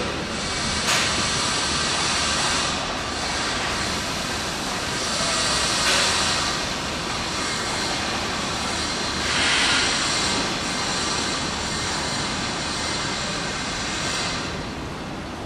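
EH200 electric freight locomotive moving very slowly with a train of tank cars: a steady rushing noise that swells briefly about one, six and ten seconds in.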